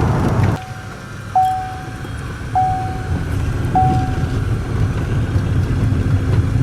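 Steady low vehicle rumble heard from inside the cab. A loud rushing noise drops away about half a second in, then three short electronic beeps sound at even intervals about a second apart.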